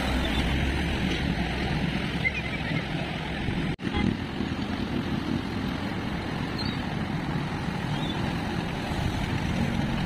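Road traffic driving through floodwater running across the road: motorcycle and car engines mixed with the steady rush and splash of water. The sound breaks off briefly a little under four seconds in.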